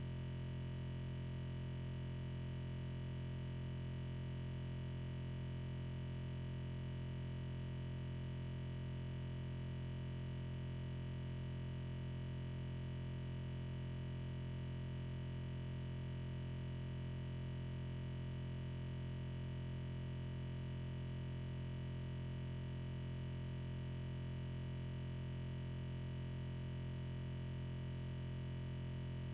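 Steady, unchanging electronic drone made of several fixed tones, strongest in the low range, with no break or variation.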